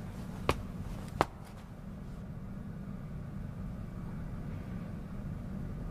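A couple of sharp footsteps on a hard floor in the first second or so, stopping, then only a low steady hum of room tone.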